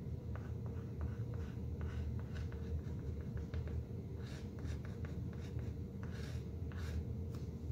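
A stick of white chalk scratching in short strokes on an acrylic-painted canvas panel as an outline is drawn, louder from about four seconds in. A steady low hum runs underneath.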